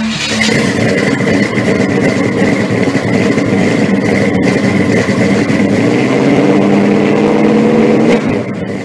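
Loud car engine running steadily at high revs, with a thin steady high whine over it. It cuts off abruptly near the end.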